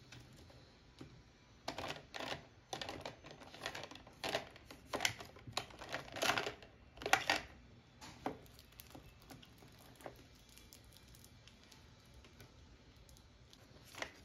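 Pens, markers and other small stationery clicking and rattling against clear plastic organizer trays as a hand rummages through a desk drawer. The clatter is busiest in the first half, thins to a few faint ticks, and ends with one sharper click near the end.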